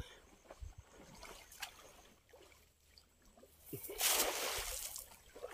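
Water splashing and streaming for about a second and a half near the end, as a cast net is worked in shallow water; before that, only faint small ticks and rustles.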